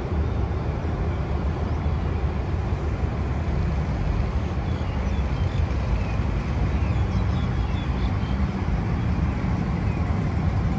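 Steady low rumble of vehicle traffic with a haze of street noise, and a few faint short high chirps about halfway through.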